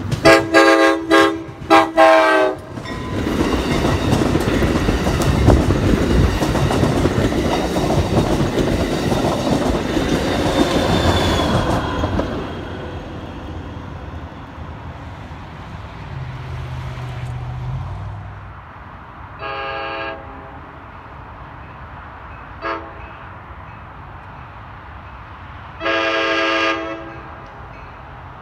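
Locomotive air horn sounding a quick series of short blasts, then a train passing with wheels rumbling and clacking over the rails for about ten seconds before fading away. Later a horn sounds again: a blast of about a second, a brief toot, and a longer blast near the end.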